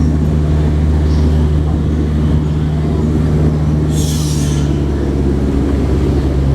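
Tour boat's motor running steadily with a low drone, and a short hiss about four seconds in.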